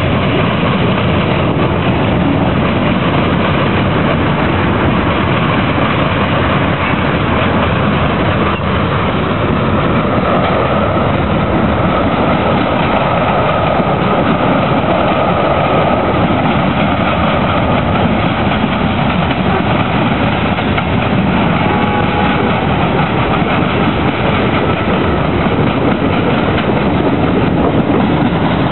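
Freight cars of a CSX manifest train rolling past close by: a loud, steady rumble and clatter of steel wheels on the rails, with the clickety-clack of wheels crossing the junction's diamond crossings.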